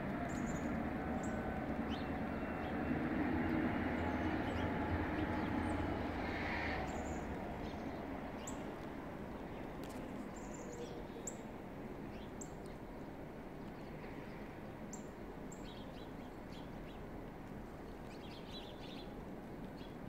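Small birds chirping, short high calls scattered throughout, over a low rumble that swells in the first few seconds and then fades away.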